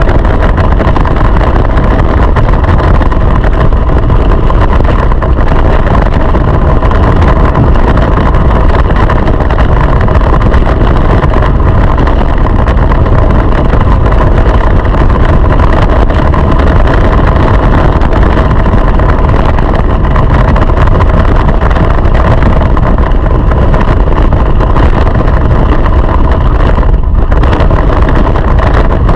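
Go-kart engine running at racing speed, heard on board the kart: a loud, steady drone, with one brief dip near the end.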